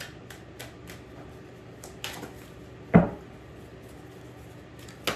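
Tarot cards being handled on a table: scattered light clicks and snaps of the cards, with one louder thump about three seconds in.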